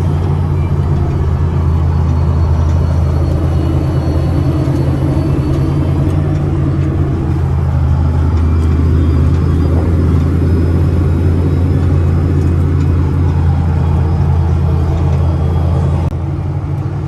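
Diesel engine of harvest machinery running steadily with a low, even drone, easing off slightly near the end.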